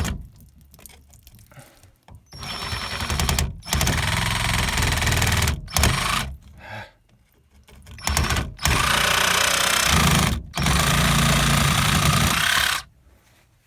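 Power saw cutting through the dishwasher drain pipe, running in about six bursts of one to two seconds with short stops between.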